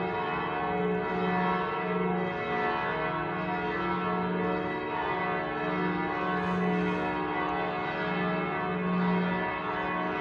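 Church bells all ringing at once in a dense, continuous peal of overlapping strikes. The deepest bell's note sounds again and again, each time for about half a second to a second.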